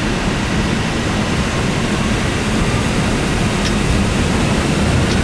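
Airbus A320's jet engines spooling up to takeoff thrust, heard inside the cockpit as a steady loud rush. A faint whine rises from about three seconds in.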